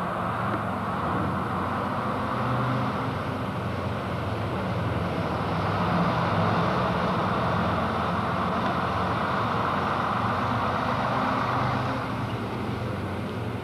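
Routemaster double-decker bus's diesel engine running steadily as the bus moves past, loudest about six seconds in.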